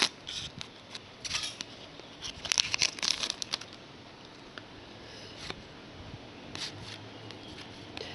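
A trading-card pack's wrapper crinkling and tearing as it is opened, in short crackly clusters over the first few seconds, then a few faint rustles from handling the cards.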